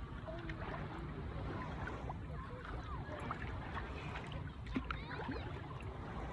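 Beach water sloshing in the shallows over a steady low rumble, with faint distant voices now and then.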